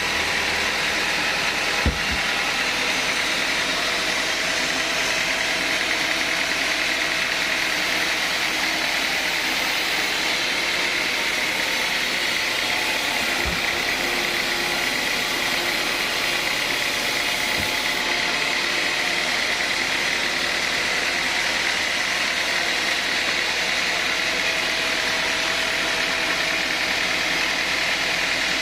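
Sawmill saw running steadily while cutting teak timber: an even, continuous machine noise with a faint whine and a few faint knocks, the clearest about two seconds in.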